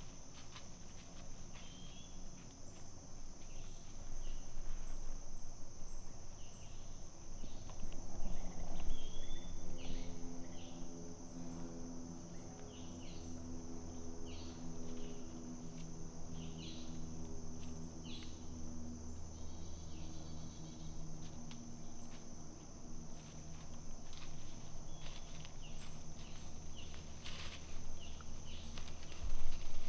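Steady high-pitched insect chorus, with scattered light rustles and crunches of white-tailed deer walking through leaf litter. A low steady hum joins about nine seconds in and fades near the end.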